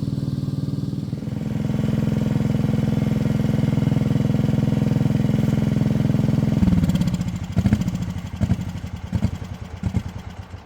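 Engine running steadily, then cut about two-thirds of the way through, after which it chugs and coughs irregularly several times, slowing, as it runs on before stopping: an engine that is reluctant to shut off.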